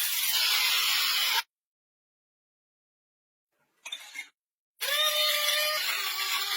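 Small electric blade grinder running in short pulses, its stainless blades chopping dry spices or beans: a burst of about a second and a half, a brief blip, then a longer burst. In the last burst a steady motor whine drops slightly in pitch partway through.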